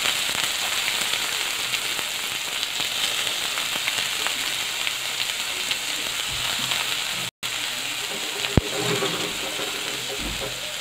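Chopped onion and garlic sizzling in hot oil in a kadhai, a steady frying hiss. The sound cuts out for a moment about seven seconds in, and a single sharp tap follows about a second later.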